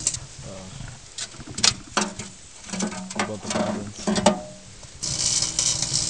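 Arcing and burning aluminium drink can inside a running microwave oven: scattered sharp crackling snaps, several a second in spells. About five seconds in, a loud hissing crackle starts suddenly.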